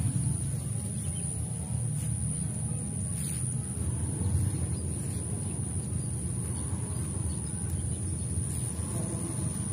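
Steady low rumble of outdoor background noise with a faint, steady high-pitched whine above it, and a couple of faint clicks a few seconds in.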